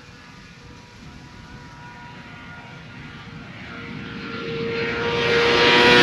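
BMW M 1000 motorcycle's inline-four engine on its stock exhaust, approaching at a steady high-revving note and growing much louder as it nears, reaching its loudest as it passes at the very end.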